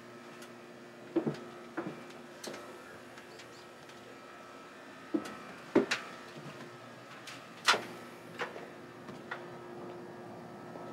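A handheld camcorder being carried: a few scattered knocks and clicks from handling over a steady low hum. The sharpest knock comes about two-thirds of the way through.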